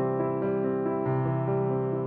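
Background music on a keyboard instrument: piano-like chords moving over long held bass notes, with no speech.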